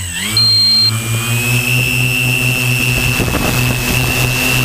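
Multirotor drone's electric motors and propellers whining steadily over an even low hum. The pitch dips at the start and climbs back over the next second or so. A short high beep sounds about half a second in.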